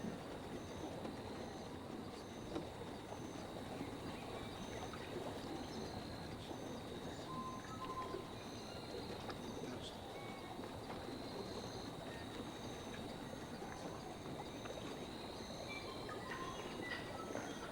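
Outdoor ambience sound effect: a steady, even rushing noise with faint high tones held beneath it, a row of short high pips repeating at intervals, and a few short chirps scattered through it.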